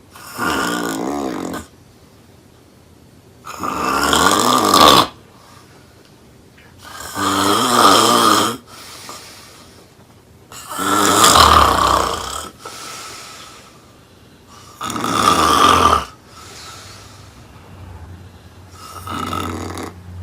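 Loud snoring, six long snores about every four seconds, with quieter breaths between them.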